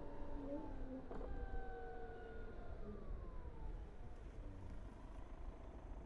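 BMW CE 04 electric scooter's motor whining, several tones sliding steadily down in pitch as it slows, over low wind and road rumble. A brief click about a second in.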